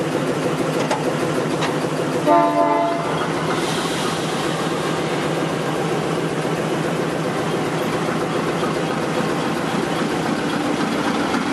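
GE C30-7A diesel-electric locomotive moving off slowly with its diesel engine running steadily. The locomotive sounds one short horn blast about two seconds in.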